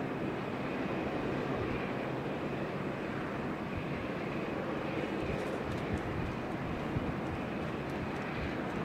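Jet airliner engines running, a steady broad noise with a faint high whine in the first few seconds.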